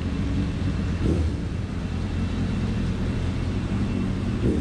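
Yamaha FZS600 Fazer's inline-four engine running at low revs as the motorcycle rolls slowly, a steady low hum with two short swells, about a second in and near the end.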